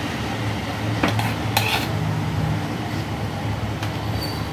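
Metal spoon scraping and clinking against a metal pot as thick dal is scooped out into a serving bowl, with two sharp clinks between one and two seconds in. A steady low hum runs underneath.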